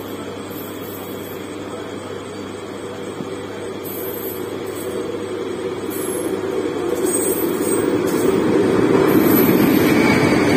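WAP-4 electric locomotive leading a passenger train as it arrives on the adjacent track, a steady rumble that grows steadily louder until the locomotive draws alongside near the end.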